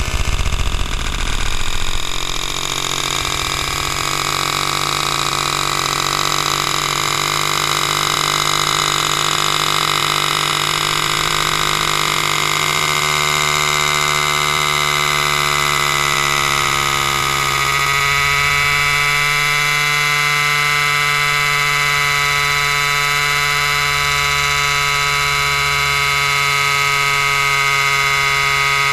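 Chainsaw engine running continuously, its pitch sliding slowly and then shifting abruptly about eighteen seconds in before holding steady.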